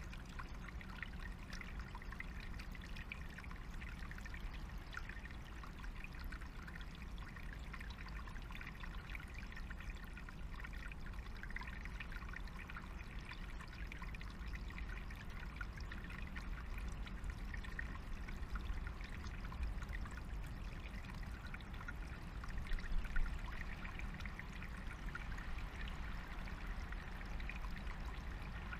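Small stream trickling and gurgling steadily over stones, with a low rumble underneath. It turns briefly louder a few times about two-thirds of the way through.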